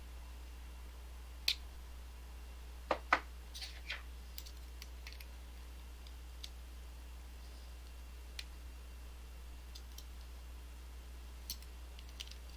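Scattered small clicks and taps of tools working at the stubborn retaining clip of an EVVA ICS lock cylinder. The loudest is a sharp pair of clicks about three seconds in, with a few fainter ticks after it.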